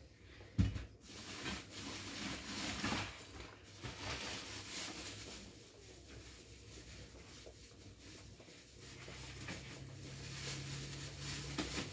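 Hands handling a cloth and working dough in a plastic bucket: soft rustling and patting, with one sharp thump about half a second in. A low steady hum comes in near the end.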